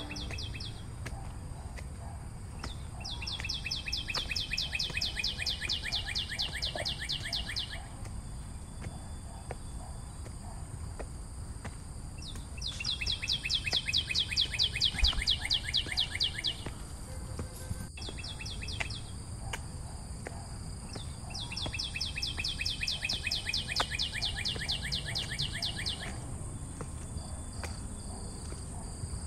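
Forest wildlife: a steady high insect hum, with three bouts of a rapid, evenly pulsed trill that falls slightly in pitch, each lasting about five seconds.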